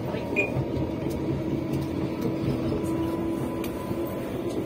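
Passenger train running, heard from inside the carriage: a steady rumble of wheels on rail with an even hum from the train's drive.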